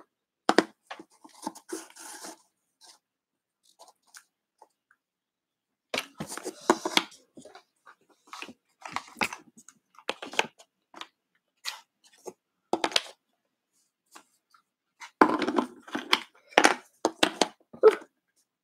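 Wooden puzzle pieces knocking, clicking and sliding against a wooden puzzle board as they are fitted into place, in scattered bursts of light clatter.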